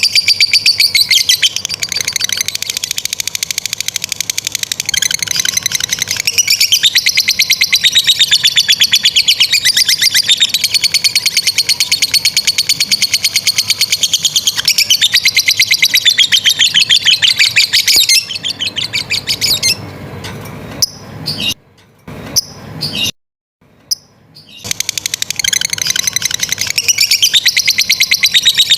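Lovebird 'ngekek': a long, rapid, high-pitched chattering trill of fast repeated notes, kept up in long unbroken runs. It breaks off about two-thirds of the way through, with a few brief near-silent gaps, then resumes near the end.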